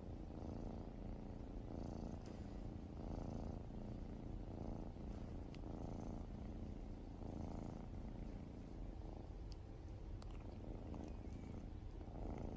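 Domestic cat purring steadily while being stroked on the cheek, the purr swelling and easing with each breath about every second and a half.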